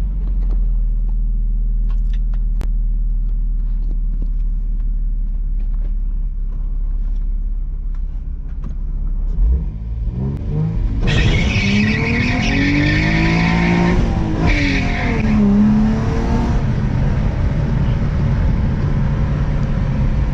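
Infiniti G35's V6 with bolt-on modifications cruising at a steady low drone, then, about ten seconds in, accelerating hard: the engine note climbs in pitch and falls back, with a loud hiss over it for several seconds.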